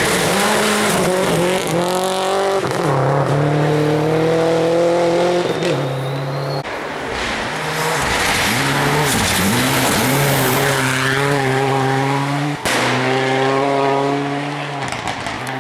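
Rally car on a gravel stage, engine revving hard as it approaches, slides through the bend and pulls away. The pitch climbs and drops again and again through the gears, with a quick run of throttle blips as it passes the bend about ten seconds in.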